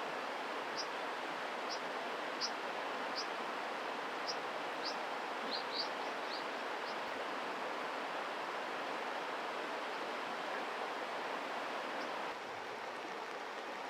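Brown dipper giving short, sharp, high calls, a little faster than one a second, over the steady rush of a mountain stream. The calls stop about seven seconds in, leaving only the water.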